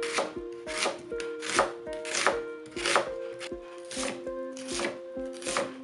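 Kitchen knife dicing an onion on a cutting board: sharp cuts knocking on the board at a steady, unhurried pace of a bit more than one a second, with background music underneath.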